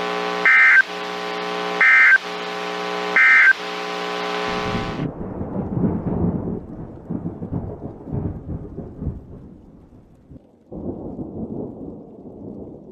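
EAS end-of-message tones: three short data bursts about a second apart over a steady buzzing hum, which cuts off about four and a half seconds in. A low, irregular rumbling noise follows.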